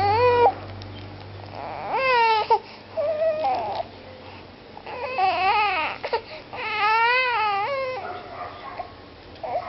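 A baby crying in a series of about five separate wails, each rising and falling in pitch, with short gaps between them.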